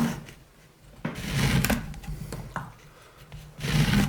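Wooden workpiece being handled and shifted on a workbench: two spells of rubbing and scraping with light knocks, one about a second in and one near the end.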